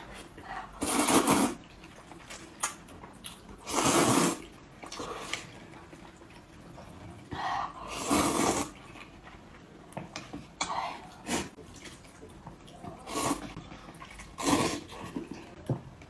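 Close-miked eating: a person slurping wet food loudly about five times, each slurp under a second long, with chewing and small clicks in between.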